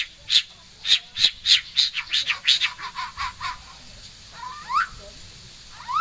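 White-rumped shama singing in full song: a quickening run of sharp, high repeated notes, then lower falling notes and a few rising whistled notes near the end.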